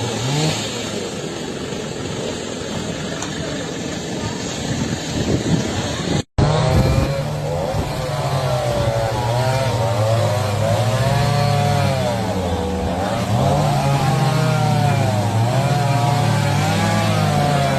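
Chainsaw running at the fallen tree, its engine note rising and falling repeatedly as it is throttled. Engine noise mixed with traffic before a sudden break about six seconds in.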